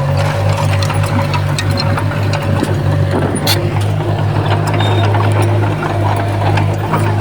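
Komatsu D20P crawler bulldozer's diesel engine running steadily, with scattered clanks and knocks from the working machine.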